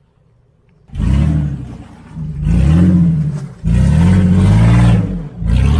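Off-road 4x4's engine revved hard in four surges, each rising then falling in pitch, starting about a second in after a moment of quiet.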